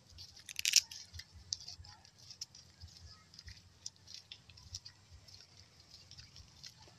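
Footsteps on a footpath with scattered crackling clicks and rustles and soft irregular thuds; a louder cluster of clicks comes just under a second in.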